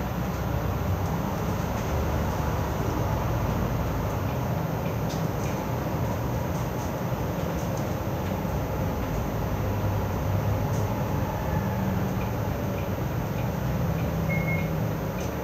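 Inside a moving city bus: steady engine drone with road and tyre noise as it drives along, the low hum shifting slightly in pitch now and then.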